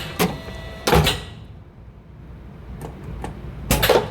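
Hinge crimper, a hardcover bookbinding machine, cycling: sharp mechanical clunks of its press about a second in and again near the end. Each clunk is followed by a brief hiss and a short ringing tone.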